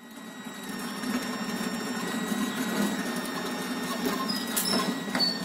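Small scooter engines running as two scooters ride up, a fast steady puttering that fades in at the start. A few short high chirps and clicks come near the end.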